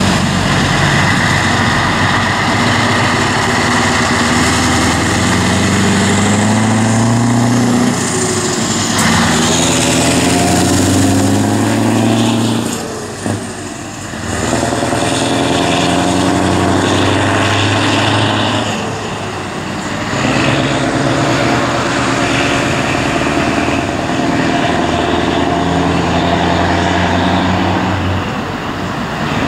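Scania 164 480's V8 diesel engine pulling away under load, its note climbing through the revs and dropping back at each gear change several times.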